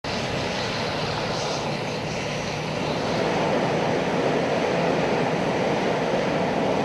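Fast-flowing floodwater rushing through a flat street area, a steady rushing noise that grows a little louder about three seconds in.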